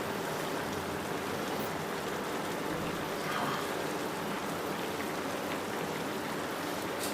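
Food sizzling steadily in a hot pan.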